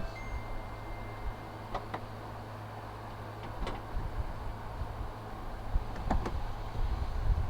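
Scattered clicks and light knocks from plastic engine-bay trim pieces and clips being handled and fitted, over a steady low hum. A brief high steady tone sounds in the first second.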